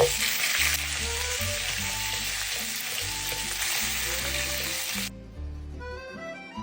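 Duck steak sizzling as it fries in a hot pan, then cutting off suddenly about five seconds in, leaving only background music that plays under it throughout.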